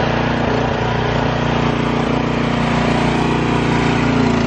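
Engine running steadily at speed to power the hydraulic hoist and cable winch of a roll-off dumpster trailer, ready to pull a dumpster up onto the trailer.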